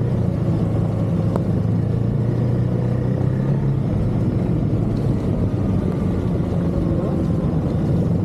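Snowmobile engine running steadily under a low rumble, its note shifting slightly about four seconds in.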